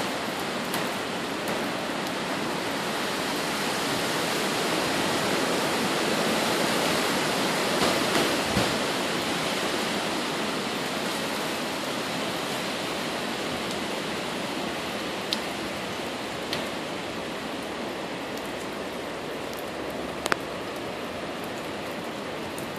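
Hurricane wind rushing through pine and palm trees with rain, a steady noise that swells to its loudest about a third of the way through and then eases. A few short sharp ticks come in the second half.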